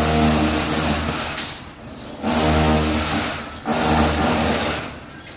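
Construction power drill running in three bursts of a second or two each, with short let-offs between them; a steady motor whine over harsh grinding noise.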